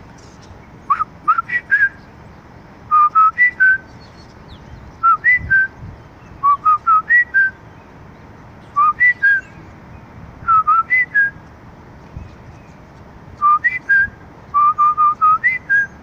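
A person whistling to birds perched on overhead wires, inviting them to answer. Short phrases of three to six quick notes rise and fall, about eight phrases every couple of seconds with brief pauses between.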